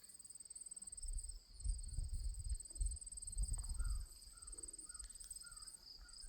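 Insects trilling steadily in a high, rapid pulse, with low rumbling on the microphone for a couple of seconds in the middle and a few faint chirps later on.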